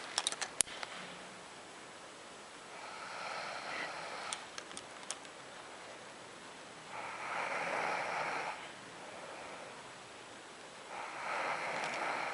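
A sleeping person snoring: three snores, each lasting about a second and a half, spaced roughly four seconds apart. A few short clicks come in the first second.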